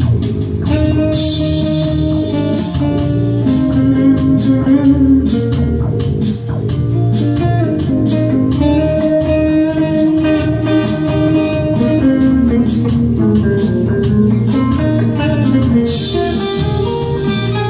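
A Les Paul-style electric guitar plays a melody over a bass line and a steady drum beat, in an instrumental rock tune, with cymbal washes about a second in and again near the end.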